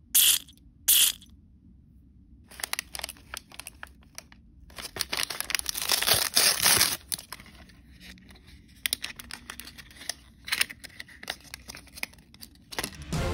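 Plastic L.O.L. Surprise blind bag crinkling and tearing open as it is unwrapped by hand: two sharp rips in the first second, then bursts of crackling, densest and loudest about midway. A deep drum-like music hit starts right at the end.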